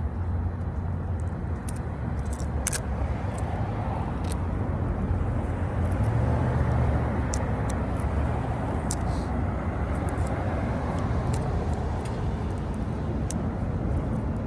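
Steady low rumble of a running motor vehicle, with a few faint clicks over it.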